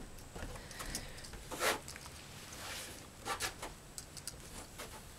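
Handling noises as a small dog is lifted off a fabric folding camp chair: soft rustles, light taps and clicks, with a brief louder rustle a little over a second in and a couple more past the middle.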